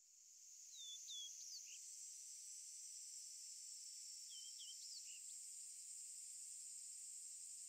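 Faint, steady, high-pitched insect chorus fading in at the start. A few short bird chirps come about a second in and again around four and a half seconds in.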